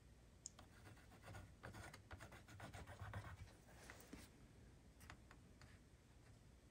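Faint pencil scratching as a length is marked on a wooden strip against a steel ruler. The scratching comes in short strokes from about one second in until just past four seconds, followed by a few light ticks.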